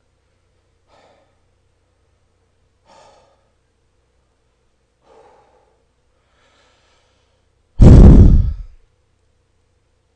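A man breathing out close to a microphone: a few faint breaths about two seconds apart, then one loud, heavy sigh blown straight into the microphone about eight seconds in, lasting about a second.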